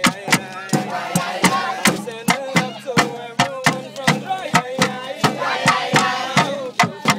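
Live acoustic music: a group of voices singing a chant-like tune over sharp, steady percussive strikes at about two to three a second.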